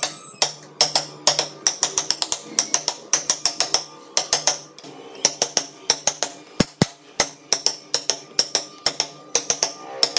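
A mallet tapping a wood-carving gouge as it cuts into a wooden block: sharp, bright taps in quick irregular clusters of several strikes.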